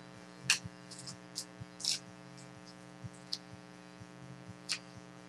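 Trading cards being handled and slid past one another: several short scratchy rustles over a steady electrical hum.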